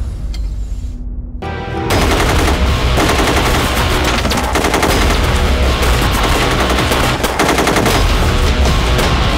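Background music, then about two seconds in a dense stretch of rapid automatic gunfire, film battle sound, continuing over the music.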